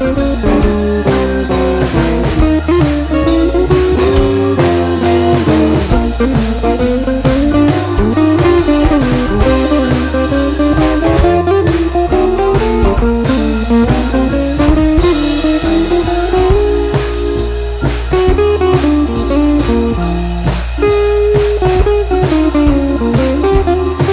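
Background music: an instrumental tune with a melody that bends up and down over a bass line and a steady drum beat.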